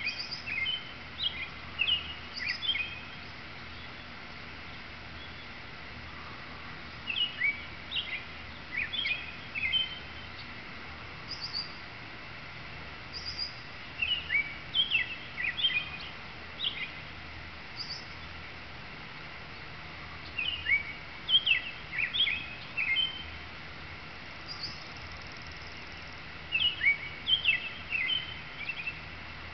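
Male American robin singing: bouts of short whistled caroling phrases about every six or seven seconds, with pauses between, and a few thin high notes in the pauses.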